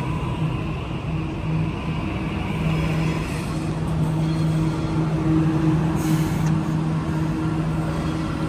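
Sydney Trains Waratah (A set) double-deck electric train standing at the platform, its onboard equipment giving a steady low hum. A brief hiss comes about six seconds in.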